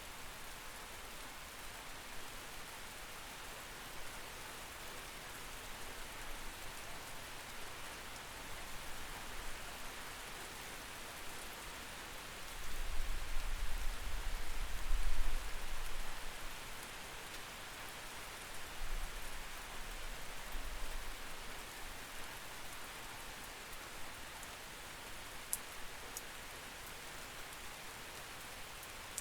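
Steady rain heard through a window, an even hiss. About halfway through, a deep low rumble swells for a few seconds, the loudest part, and comes back more weakly a few seconds later.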